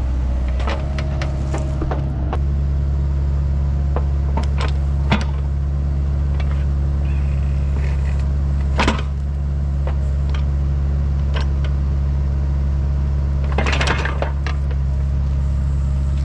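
Mini excavator's diesel engine idling steadily, with scattered metal clicks and clanks as an attachment is worked onto the quick coupler and its hydraulic hoses are handled.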